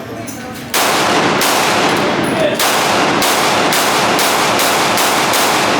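Gunshots at a shooting range: a string of shots starting just under a second in, roughly one every half second to second, each echoing so that they blur into one another.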